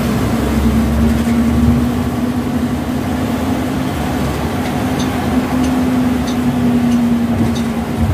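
Interior of a moving bus: a steady engine and drivetrain hum over low road rumble. In the second half, faint ticking repeats about every 0.6 seconds.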